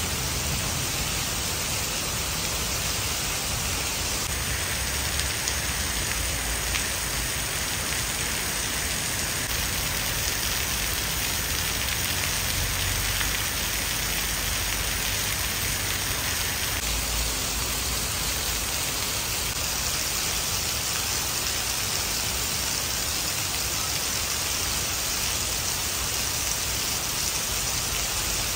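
Steady rain falling on stone paving and a tiled roof, an even hiss with no letup.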